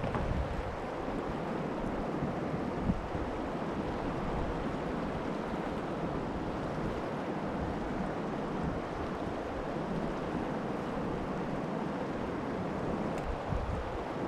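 River rapids rushing and churning around a kayak, a steady wash of water noise with some wind rumbling on the microphone. One brief knock about three seconds in.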